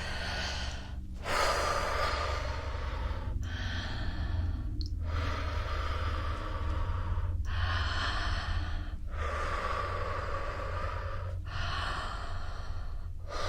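Slow, deep human breathing close to the microphone: seven long, airy breaths in a row, each about one and a half to two and a half seconds, with brief pauses between them.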